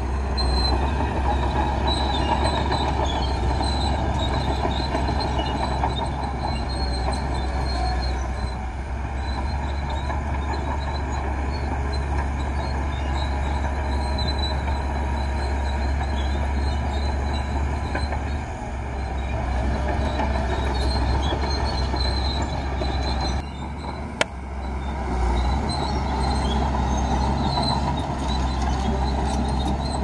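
Crawler bulldozer working sand: its diesel engine running steadily under load, with high squeaks from the steel tracks. The sound changes abruptly about three-quarters through, with one sharp click just after.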